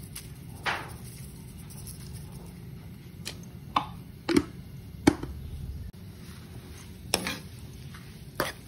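A utensil knocking against a wok about six times, short sharp knocks spaced out, over a low steady background hum, while cassava leaves are salted and stirred in the pan.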